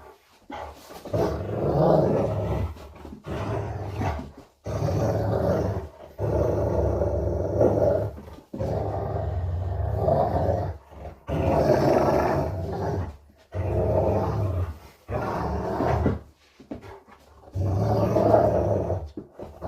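Rottweiler play-growling: a run of about ten long, low growls, each a second or two long, broken by short pauses for breath.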